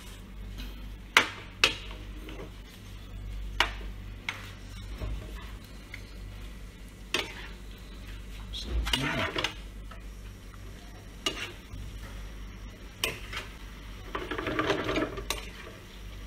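A metal utensil stirring chicken pieces and chicken liver in sauce in a non-stick frying pan, with scattered clicks and scrapes of metal on the pan and a faint sizzle. The longest scraping comes about nine seconds in and again near the end.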